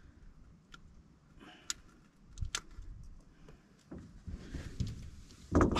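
Faint, scattered clicks and a few soft knocks of hands working at a landed bass's mouth to unhook it, with a louder knock near the end.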